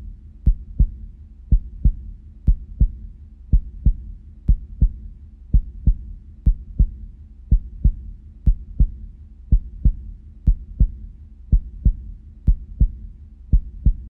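Heartbeat sound: a steady lub-dub double thump about once a second, over a low steady hum.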